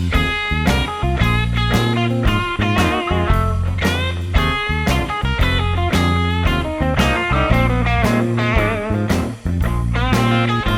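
Background music: a guitar-led rock track with a steady bass and beat, dropping out briefly about nine seconds in.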